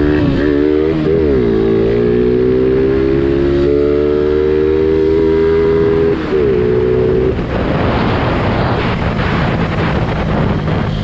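Small Honda step-through motorcycle engine running hard at speed, its pitch wavering at first and then climbing slowly. Later, wind rushing over the microphone drowns most of the engine note.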